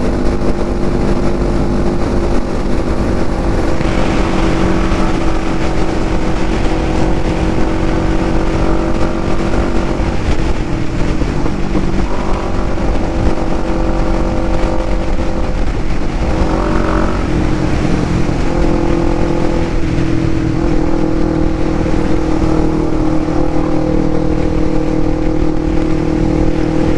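Sport motorcycle engine running steadily at highway speed, its pitch shifting a few times and rising once about two thirds of the way through, under heavy wind noise on a helmet-mounted microphone.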